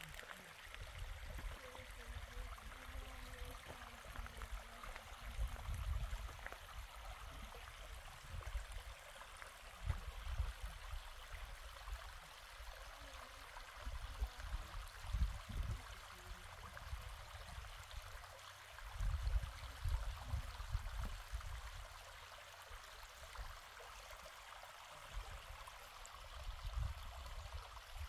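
Shallow stream trickling over rock, giving a steady faint hiss of running water, with irregular low rumbles that swell and fade every few seconds.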